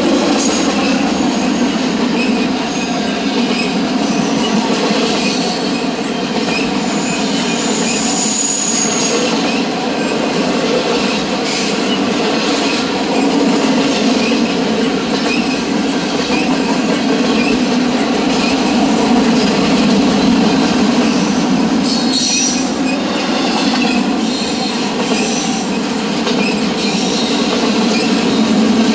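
Double-stack intermodal freight cars rolling past at speed: a steady rumble of steel wheels on rail with light regular clicking. Brief high wheel squeals come about eight seconds in and again around twenty-two seconds.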